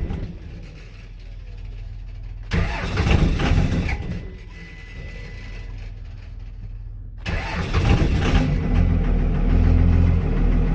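Starter cranking a 5.9 L 24-valve Cummins diesel in two short bursts with pauses between, then a longer crank about seven seconds in as the engine fires and keeps running. The no-start was caused by a rotted ground wire on the crank position sensor, now repaired.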